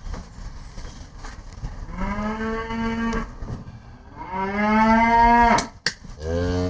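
Cattle mooing: two long, slightly rising moos, then a third that starts near the end. Two sharp knocks come just before the third moo.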